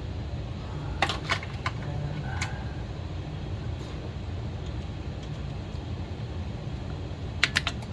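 Hand tools clicking and tapping on chainsaw parts during disassembly: a cluster of sharp clicks about a second in, another about two and a half seconds in, and a few more near the end. A steady low hum runs underneath.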